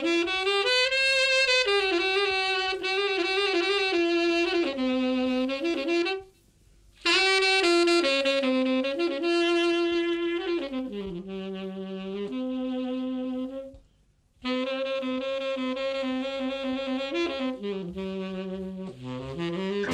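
Music: a solo saxophone playing a stepping melody, one note at a time, breaking off twice for short pauses.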